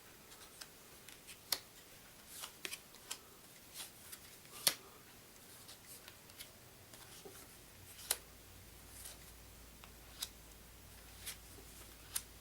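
Game cards being handled, flipped over and laid down on a table: scattered soft clicks and taps at an uneven pace, one sharper snap a little under five seconds in.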